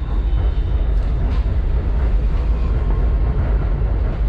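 BTS Skytrain car running along its track, heard from inside the carriage: a steady low rumble of wheels and motors.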